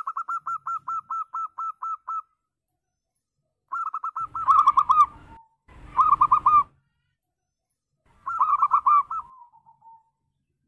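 Local perkutut (zebra dove) singing: a rapid run of about a dozen soft repeated coo notes, then three shorter, louder bursts of quick notes, two of them ending in a lower drawn-out note.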